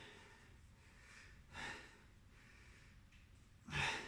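A man breathing hard and out of breath from exertion: a breath about a second and a half in, then a louder, voiced exhale near the end.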